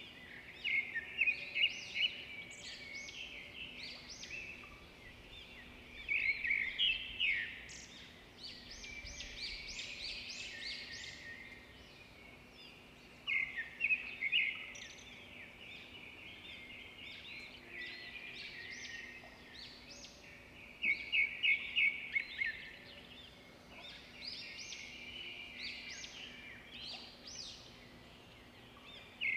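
Birds chirping: runs of quick, sharp, high repeated notes that come back every few seconds, with softer chirping in between.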